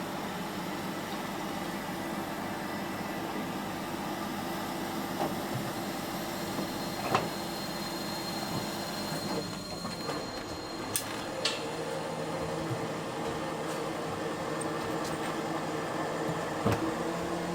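A steady engine drone whose pitch shifts about ten seconds in, with a few sharp knocks, like timber being struck, about seven, eleven and seventeen seconds in.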